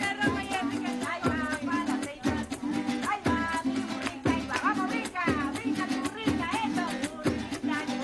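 Live Venezuelan eastern folk music for a diversión oriental: cuatro and guitar strumming over a drum stroke about once a second, with a voice singing the melody.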